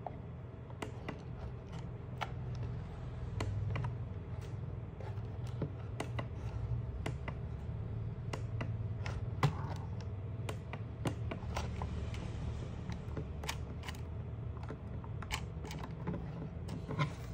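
Toy RC drift car's small electric drive motor spinning its wheels in the air, a low hum that swells and eases with the throttle, over irregular light plastic clicks and taps from the car and transmitter being worked. A louder burst of clicks comes at the very end.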